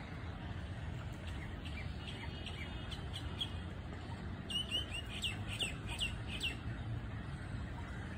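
A bird calling from the lakeside trees: a few scattered short high calls, then a quick run of about seven sharp notes around the middle. Underneath is a steady low rumble.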